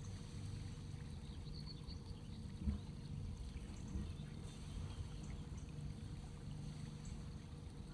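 A boat's engine running with a low, steady drone, water trickling and splashing along the hull. One short knock about two and a half seconds in.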